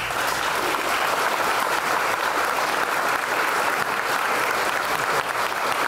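Applause: many hands clapping together in a dense, steady patter.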